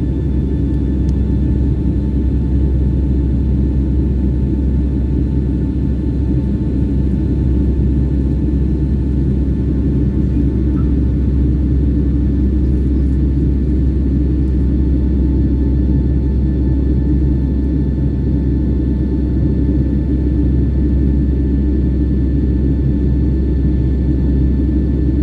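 Jet airliner cabin noise in flight: a steady, even rumble of the engines and airflow, with a faint steady whine over it.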